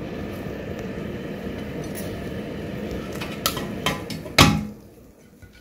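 Kitchen tongs and chicken wings knocking on a serving plate: a few light clicks, then one louder clink about four and a half seconds in, over a steady rushing noise that drops away just after it.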